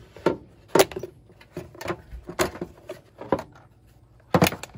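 Plastic air filter box of a 1997 Chevrolet Camaro's 3.8 V6 being unclipped and pulled apart by hand: a string of irregular sharp plastic clicks and knocks, the loudest cluster near the end.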